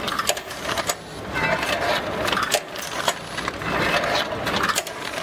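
Rotary premade-pouch packing machine running, with rapid mechanical clicking and clatter and a short hissing swell about once a second as the machine cycles.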